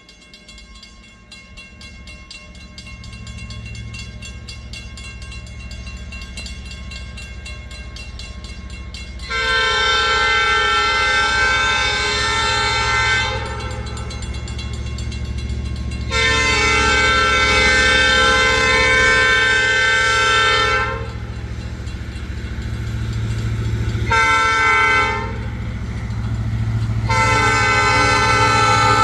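EMD SD40-2 diesel locomotive approaching, its engine rumble growing steadily louder, sounding its multi-note air horn in the grade-crossing pattern: two long blasts, one short, then a long one that carries on.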